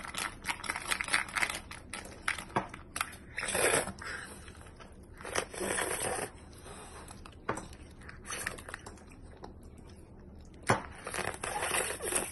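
A child slurping sticky natto (fermented soybeans) off chopsticks in several long slurps, with wet sticky clicks and metal chopsticks tapping the plastic tray between them.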